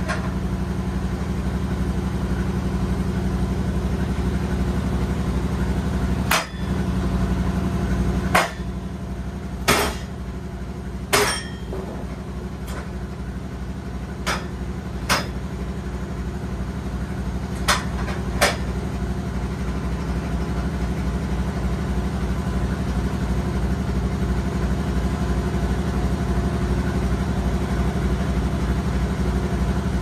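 Band sawmill's engine running steadily, with about eight sharp knocks scattered through the middle of the stretch as the log on the mill bed is handled.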